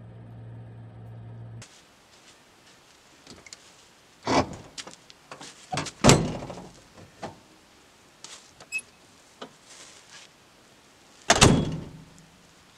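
Camper van door being worked: a few separate clunks and knocks, the loudest about six seconds in, and a last heavy thunk as it is shut near the end.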